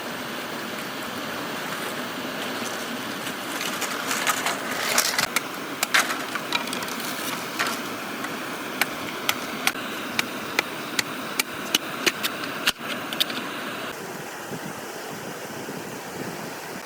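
Sharp knocks over a steady rushing noise: a few irregular ones in the first half, then a regular run of about two a second for several seconds.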